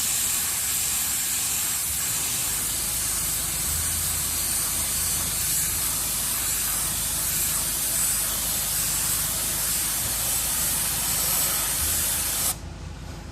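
Automotive paint being sprayed onto a repaired alloy wheel: one long, steady hiss of spray that cuts off suddenly near the end.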